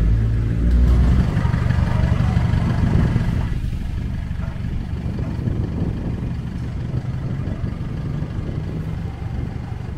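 An engine running with a steady low rumble, a little louder in the first few seconds.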